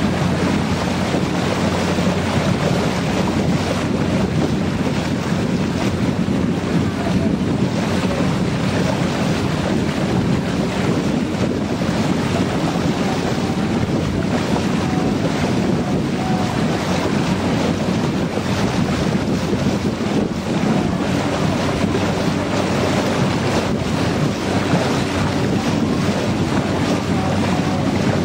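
Motor launch under way, its engine running with a steady low hum, with wind buffeting the microphone and water rushing past the hull.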